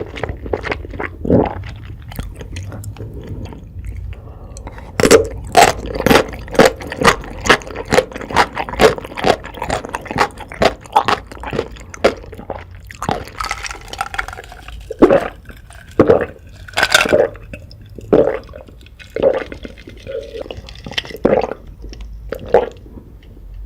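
Close-miked chewing of crunchy food. From about five seconds in there is a quick run of crisp crunches, about two a second, then slower, irregular chewing with wet, squishy sounds.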